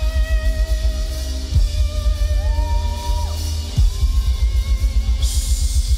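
Live worship band music with a heavy bass-and-drum beat under long held melodic notes. A cymbal crash comes about five seconds in.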